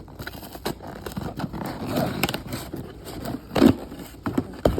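Toy packaging being handled and opened by hand: scraping and crackling with scattered sharp knocks, the loudest about three and a half seconds in and near the end.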